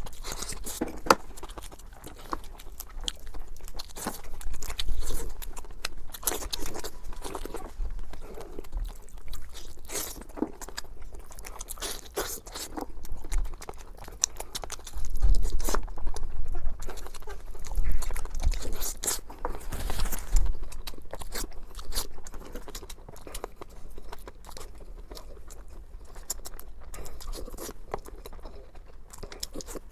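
Close-miked chewing and biting, with irregular crunching and crackling of food in the mouth, somewhat louder in the middle stretch.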